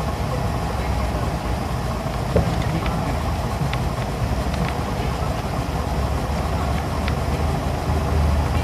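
Isuzu Erga city bus's inline-six diesel engine running steadily as the bus rolls slowly, heard from inside the cabin, with a few small rattles.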